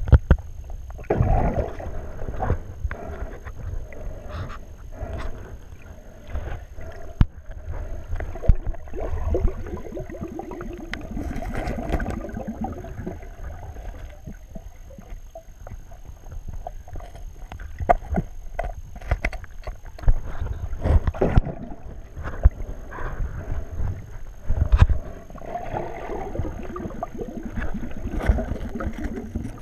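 Muffled water movement heard through a GoPro's waterproof housing held underwater, with irregular knocks and clicks. A faint steady high tone runs underneath.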